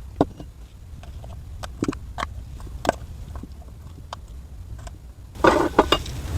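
Scattered light clicks and taps of small objects being handled over a low steady hum, followed by a brief rustle near the end.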